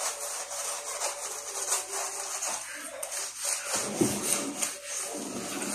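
Scouring pad scrubbing greasy ceramic wall tiles, a rasping rub in quick repeated strokes. The grease is stuck fast and hard to remove.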